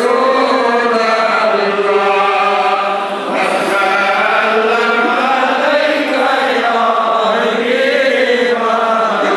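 Men's voices chanting Darood, the Islamic salutations on the Prophet, together in long drawn-out melodic lines.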